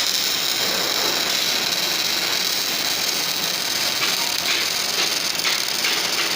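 MIG welding arc sizzling as a steady, high hiss while a bead is run.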